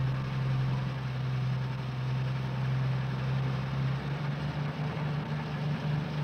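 Truck engine running with a steady low hum, which turns into an uneven pulsing about four seconds in.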